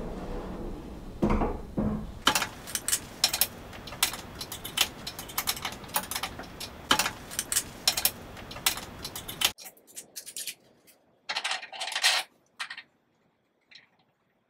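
Metal clicking and clinking as a door stop is fitted onto a steel barn door track, after a couple of dull knocks about a second in. The clicks come irregularly, in a dense run and then a few scattered ones.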